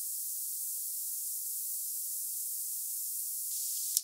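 Steady, thin high-pitched hiss with its low end cut away, and one sharp click near the end.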